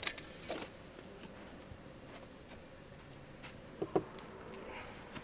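A few light clicks and taps of food and cookware being handled: several in the first half-second, then a quiet stretch, and two close knocks a little under four seconds in.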